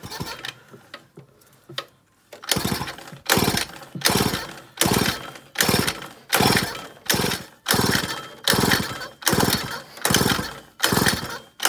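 Pocket bike's two-stroke engine turned over by its pull-starter: about a dozen quick pulls, one every 0.8 s or so, starting a couple of seconds in, each a short rattling whirr. The spark plug is out and grounded on the frame for a spark test, so the engine spins freely without firing.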